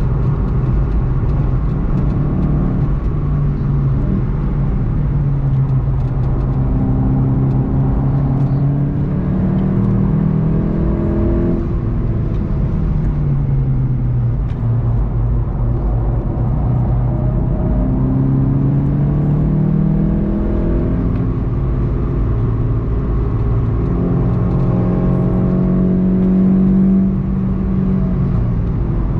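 Volkswagen Golf 7 GTI TCR's turbocharged 2.0-litre four-cylinder engine heard from inside the car, its pitch falling and rising several times as the car slows and accelerates through the gears, then holding steady near the end.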